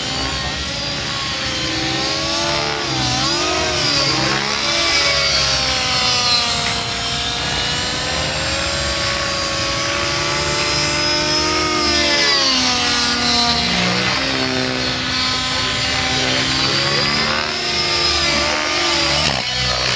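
7HV nitro radio-controlled helicopter flying aerobatics: its glow engine and rotor head run with a whine that swoops up and down in pitch again and again.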